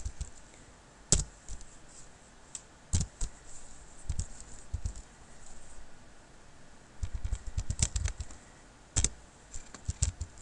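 Typing on a computer keyboard: scattered single keystrokes with pauses between them, and a quicker run of keystrokes about seven to eight seconds in.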